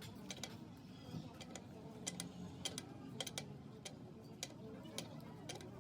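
Irregular light clicks and taps, about a dozen, from hand work on tractor parts.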